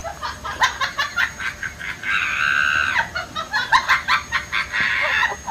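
A cat licking a surface close up, a quick run of short wet clicking licks. Two longer high squeals cut in, about two seconds in and again near the end.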